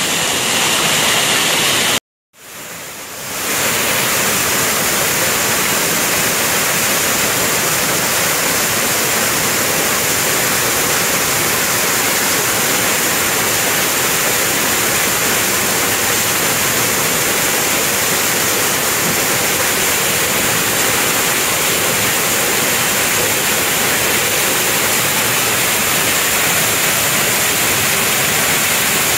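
Steady rush of a waterfall and the stream below it: a loud, even hiss of falling and running water. It cuts out for a moment about two seconds in and fades back up.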